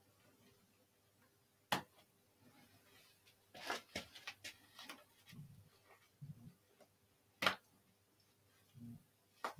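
Hairdressing scissors cutting sections of a mannequin head's hair: two sharp blade clicks, one about two seconds in and one near the end, with a cluster of softer snips and rustling in between.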